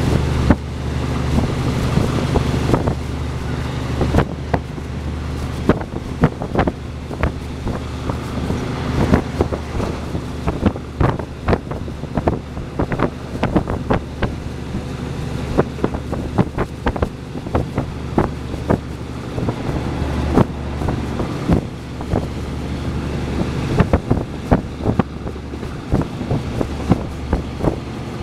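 Passenger train running along the line, heard from inside a carriage with the window open: a steady low rumble and rushing wind, with many sharp, irregular clacks of the wheels over the rails.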